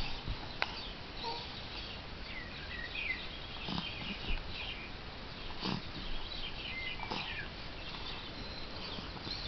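An infant's small, quiet noises after crying: short high squeaks and snuffly breaths, with a few sharp clicks scattered through.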